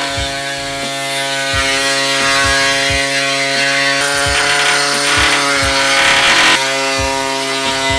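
Pneumatic reciprocating air saw cutting out rusted steel from a Toyota AE86 Trueno body panel: a steady buzzing, chattering note that shifts slightly about two thirds of the way through.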